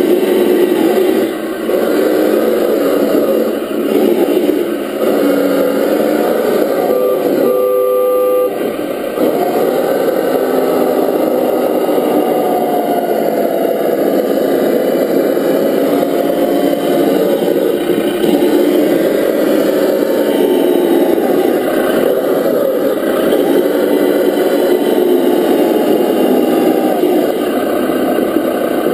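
Steady engine-like running from a 1/10-scale RC Defender D90 crawler, its pitch slowly rising and falling as it drives. A brief steady tone sounds about eight seconds in.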